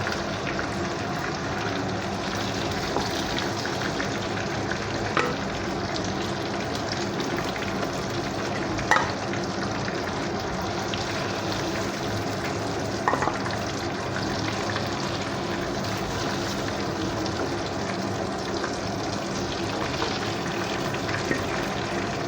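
Marinated chicken pieces sizzling steadily as they fry in hot oil and ghee in a kadai, with three short knocks from the pan along the way.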